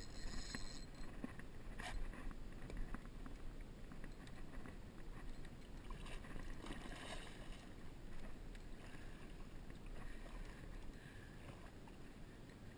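Water splashing and sloshing at the side of a small flats skiff as a hooked permit thrashes at the boatside, with a few light knocks against the hull, the sharpest about two seconds in.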